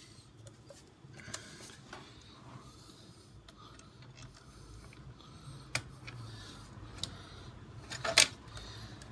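Scattered small clicks and scrapes of a CPU cooler's mounting bracket being handled and fitted to a motherboard, with a short, louder clatter of knocks about eight seconds in.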